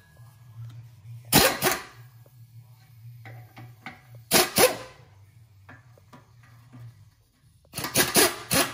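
Pneumatic impact wrench loosening the exhaust clamp bolts by the catalytic converters, in short bursts: two quick ones about a second and a half in, two more just past four seconds, and a run of several near the end. A low steady hum lies underneath until about seven seconds in.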